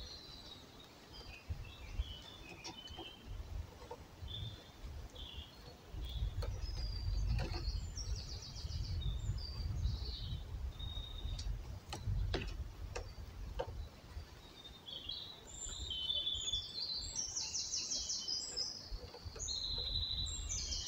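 Woodland songbirds chirping, with a couple of fast trills, over a low rumble that comes in about six seconds in and fades near the end. Faint rustles and clicks as twine is wound round a branch and tree trunk.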